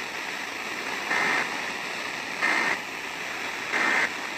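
Three short, shrill digital data bursts about a second apart over steady radio hiss: the Emergency Alert System end-of-message tones that close the broadcast warning.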